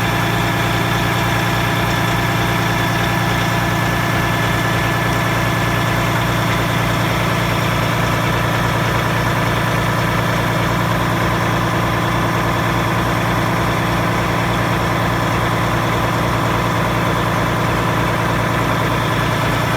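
Paccar MX inline-six diesel engine idling steadily, running after a hard start that needed the fuel system hand-primed.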